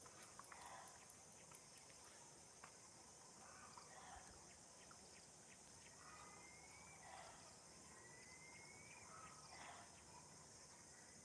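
Faint outdoor ambience of a steady, high insect chorus with scattered bird calls, including two rising whistles about six and eight seconds in.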